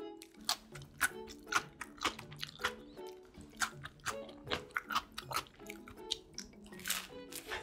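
Close-miked chewing of pizza and a pickle slice, with repeated crisp crunches and a louder bite near the end, over background music.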